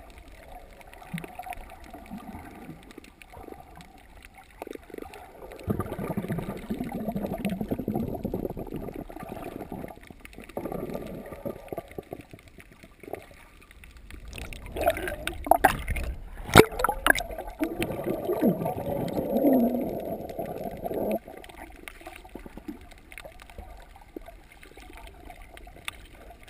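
Muffled water sounds picked up by a camera held underwater: swishing and gurgling that swells in two louder stretches, with a few sharp knocks around the middle.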